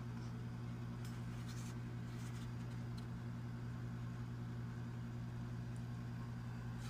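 A steady low hum, with a few faint light clicks and taps of the plastic control panel being handled.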